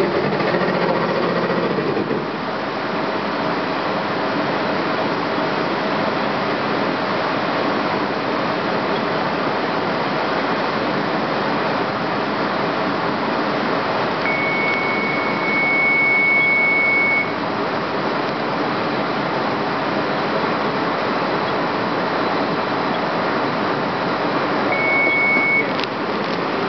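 Steady mechanical running noise from a machine's CS axis as it moves, the abnormal sound of this axis in motion. A high steady tone comes in for about three seconds midway and again briefly near the end.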